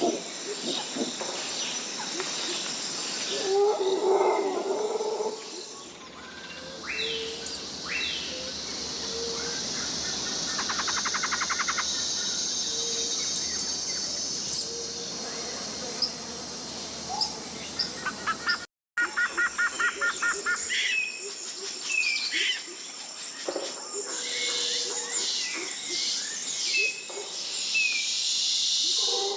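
Tropical rainforest ambience: a steady high insect hum under many short bird calls and chirps, with a few fast rattling trills. Low hooting calls are heard near the start and again at the end, and the sound cuts out for an instant about two-thirds through.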